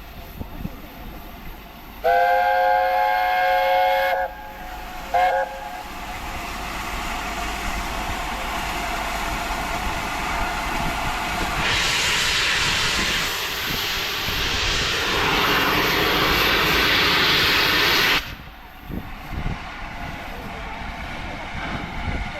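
Steam locomotive whistle sounding a chord of several tones for about two seconds, then a short second toot. After that comes a loud, steadily building hiss of steam that cuts off suddenly a few seconds before the end.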